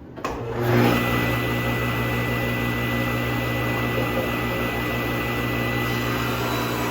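An electric woodworking shop machine starts up, comes up to speed within about a second, then runs steadily with a constant hum.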